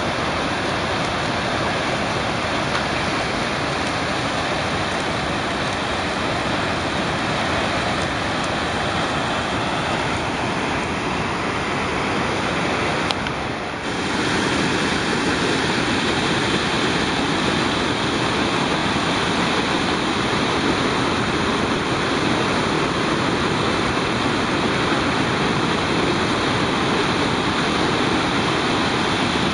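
The Credit River in flood after torrential rain, rushing and churning over a weir and falls with a steady, loud roar of water. The sound dips briefly about halfway through.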